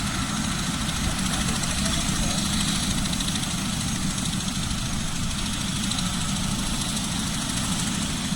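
A helicopter's engine running with a steady, continuous noise.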